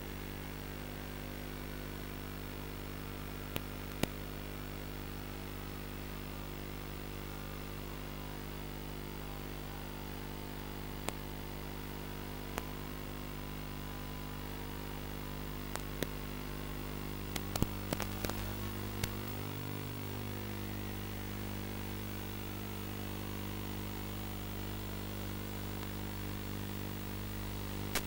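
Steady electrical hum and buzz with static hiss, as picked up on the audio channel of an analog FPV video link. Sharp static clicks come now and then, with a cluster a little past halfway, where the hum shifts.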